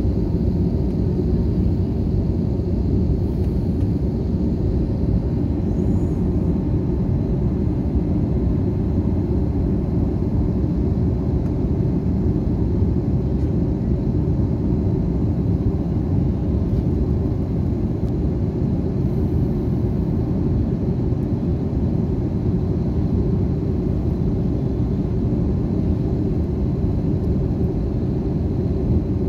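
Jet airliner cabin noise: a steady low rumble of the engines and airflow, even and unbroken throughout.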